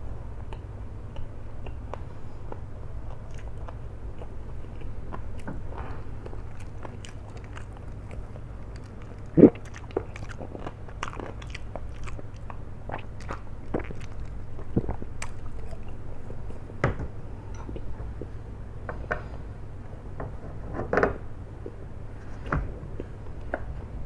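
A person eating kwetiau (flat rice noodles) close to the microphone, chewing with many short clicks and smacks. A louder knock comes about nine and a half seconds in. A steady low hum runs underneath.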